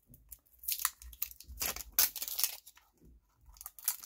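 Packaging around a roll of stickers being torn open and crinkled by hand, in irregular rustling bursts with a short pause near the end.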